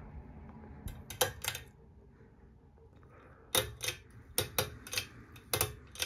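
Sharp clicks in two runs, a few just after a second in and about seven more from three and a half seconds on, from a ceiling fan's pull-chain switch being worked.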